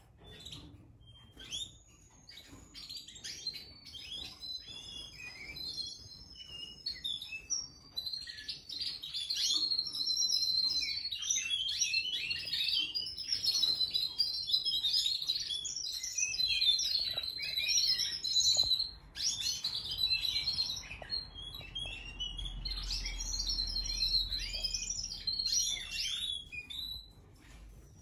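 Domestic canaries singing: fast runs of chirps and trills, soft at first and much louder from about eight seconds in, with a short lull about two-thirds through and fading near the end.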